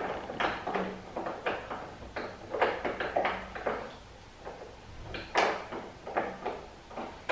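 Irregular light clicks and rattles of a push mower's metal handle and its wing nuts being worked loose by hand, with one sharper knock about five seconds in.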